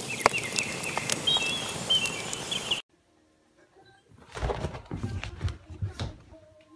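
Short high chirps over a steady hiss that cut off suddenly about three seconds in; after a short silence, a shih tzu scrambles about with several thumps and scuffles.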